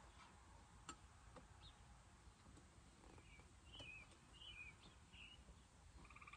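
Near silence: faint outdoor ambience, with a few short bird chirps in the middle and a couple of faint clicks.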